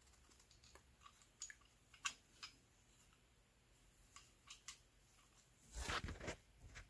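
Gloved hands handling a plastic double-pole circuit breaker: faint scattered clicks and rubs, with a brief louder rustle about six seconds in.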